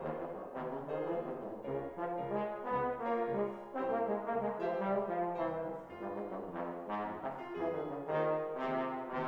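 Bass trombone playing a line of quickly changing notes over grand piano accompaniment.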